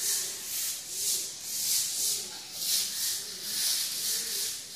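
A broom sweeping a tiled floor: repeated swishing strokes, about one a second.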